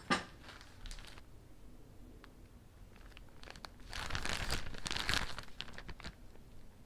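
Plastic packaging crinkling as it is handled. There is a sharp click at the start, a few light rustles, then a louder stretch of crinkling about four seconds in that lasts a second and a half.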